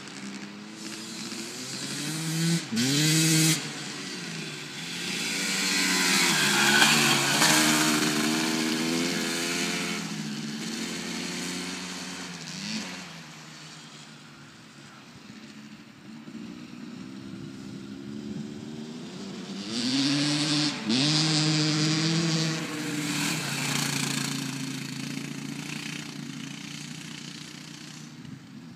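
Small dirt bike engine revving hard as it laps a dirt track, growing loud as it passes close, around 7 s and again around 21 s, and fading as it rides away between. Twice the revs climb and then drop sharply.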